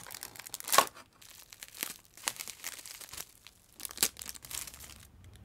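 Clear plastic packaging bag crinkling and rustling as it is handled and opened around a doll. Irregular crackles, with two sharper, louder ones about a second in and about four seconds in.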